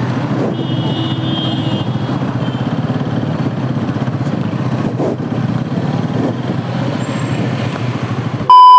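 Bajaj Pulsar NS200's single-cylinder engine running steadily at low riding speed. Just before the end, a loud steady electronic beep cuts in.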